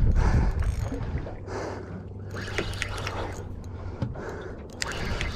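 Water sloshing around a small boat, with wind noise, a few light knocks and a faint steady low hum.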